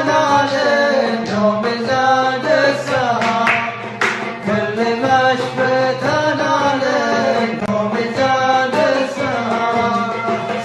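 Arabic song: a voice singing a sliding, ornamented melody over instrumental accompaniment with plucked notes.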